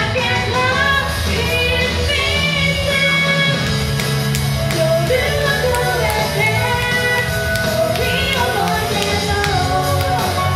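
A woman singing a J-pop song live into a handheld microphone over a loud band backing track, amplified on stage.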